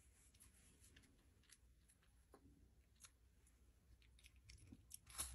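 Faint, scattered wet clicks of a small chihuahua nibbling and chewing a chicken nugget, with one louder click near the end.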